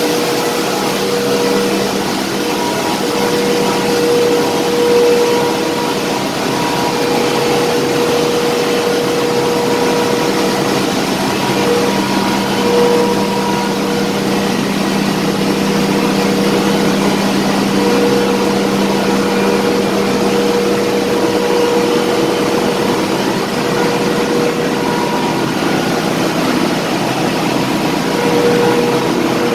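Ship's engine-room machinery running: a loud, continuous hum and rush with a few steady tones that swell and fade.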